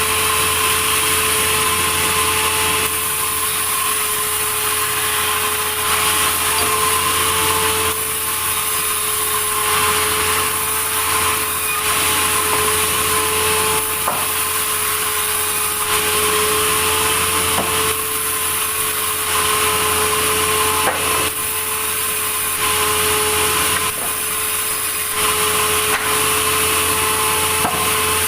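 Sawmill saw running and cutting through a log: a steady machine tone under the hiss of the blade in the wood. The level shifts slightly every couple of seconds.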